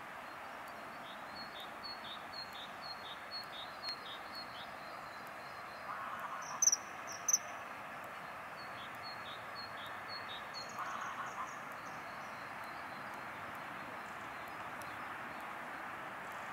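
Wild birds calling over a steady outdoor hiss: a run of short, high, slightly falling notes about two a second, two sharp shrill notes about seven seconds in that are the loudest sounds, then another run of short high notes.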